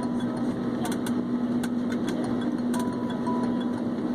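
Airliner engines heard inside the cabin: a steady loud drone with a strong low hum running through it. Two pairs of short, faint high beeps and a few light clicks sound over it.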